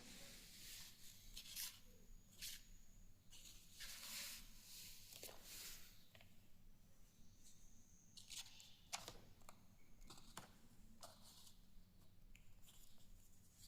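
Faint rustling and crinkling of a sheet of paper being handled and folded, in irregular short strokes over a low steady hum.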